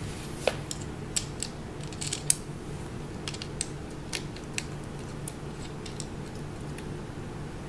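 Metal washers and locking nuts being fitted onto bolts and hand-tightened on a wicker chair frame: irregular small clicks and taps, the sharpest about half a second and two seconds in.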